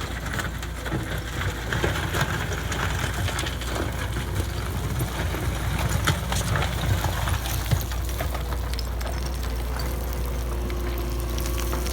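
Cat 906H2 compact wheel loader's diesel engine running steadily, with occasional sharp knocks from the working machine. In the last few seconds a steady whine comes in over the engine.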